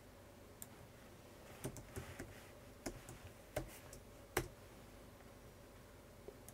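Computer keyboard being typed on: a short, uneven run of faint key clicks, about seven or eight strokes, as a short file name is entered.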